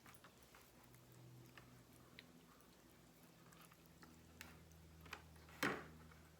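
Hands rubbing marinade into a raw whole chicken: faint, scattered soft clicks and ticks, with one sharper click near the end.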